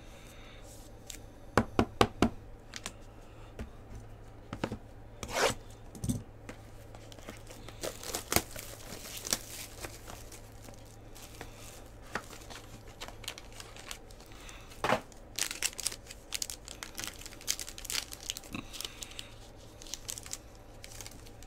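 A silver foil trading-card pack being torn open and crinkled, in several spells of crackling tearing, as the cards are pulled out. A quick run of sharp clicks about two seconds in and scattered knocks come from cards and a plastic top loader being handled.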